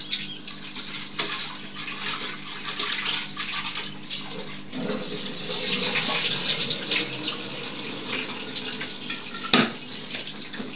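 Tap water running into a steel pot as chopped onions are rinsed, the water splashing and swirling unevenly. About a second before the end comes a single sharp knock.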